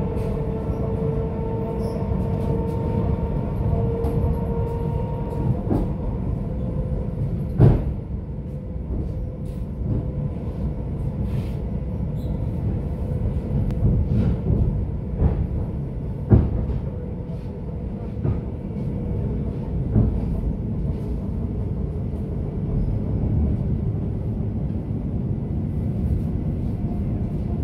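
ET2M electric multiple unit heard from inside a carriage while under way: a steady low rumble, with a whine that fades out after about six seconds. Several sharp knocks come through, the loudest at about eight and sixteen seconds.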